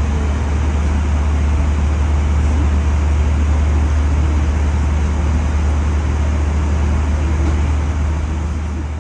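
Steady airliner cabin noise in flight: a deep engine and airflow rumble under an even hiss, dipping slightly near the end.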